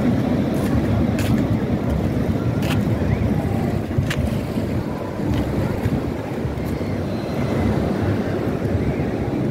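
Wind buffeting the microphone over the steady wash of sea surf around the pier, with a few faint clicks.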